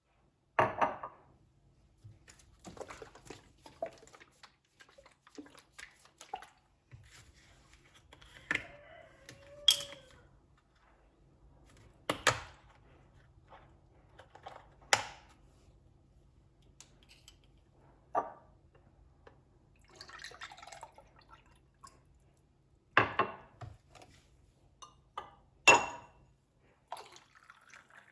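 Household handling sounds: sharp knocks and clinks every few seconds, with softer rustling between them and some dripping or pouring water.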